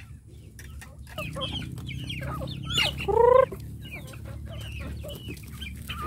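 Backyard chickens clucking, with many short clucks throughout and one loud squawk about three seconds in.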